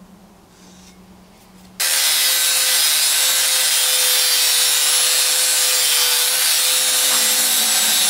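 Angle grinder grinding a steel spindle gusset, clearancing it to fit snugly against the spindle. It starts abruptly about two seconds in after a quiet stretch, then runs as a loud, steady grinding hiss with the motor's even whine.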